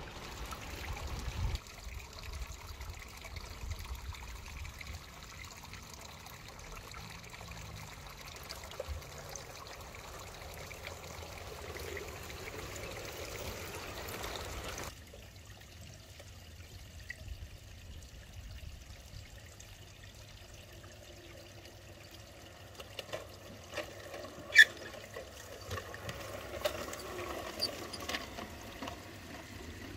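Water trickling steadily into a garden pond, with a single sharp click about two-thirds of the way through.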